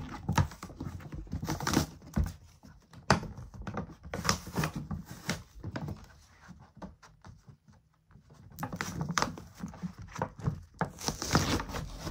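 Barbie doll box packaging being pried and peeled open by hand: irregular rustling, crinkling and snapping of cardboard and plastic, with a quieter stretch a little past the middle.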